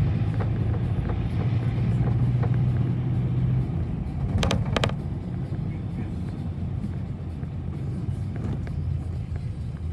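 City bus running as it drives, with a steady low engine hum that drops away a little over three seconds in. Two sharp clacks follow about a second later.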